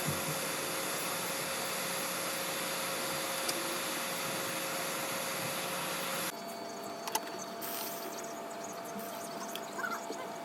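Hot air rework station blowing a steady hiss with a faint whine, cutting off abruptly about six seconds in. A quieter steady hum with a few light clicks follows.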